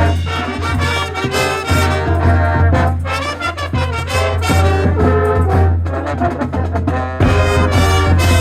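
A live band playing, with brass instruments prominent over a sustained low bass note.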